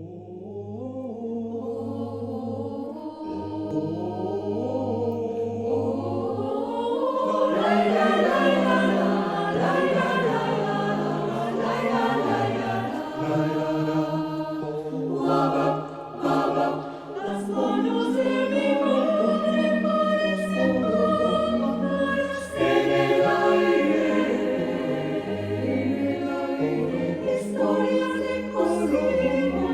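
A choir singing in several-part harmony, starting softly and building to full voice over the first several seconds.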